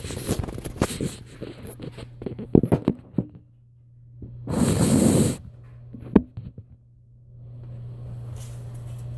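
Footfalls and handling knocks as a child moves about a hallway with a Nerf blaster: a quick run of knocks and clicks, a loud rush of noise about a second long halfway through, and one more sharp knock after it. A low electrical hum runs underneath.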